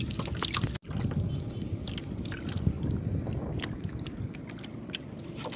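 Wind buffeting the microphone over water lapping against a small outrigger boat, with scattered light clicks. The sound cuts out for an instant just under a second in.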